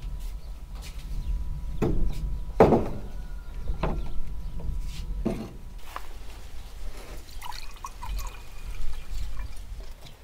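Drinking glasses and a tray set down on a wooden table with a few sharp knocks, then milk poured from a glass jar into two glasses. A steady low rumble lies underneath.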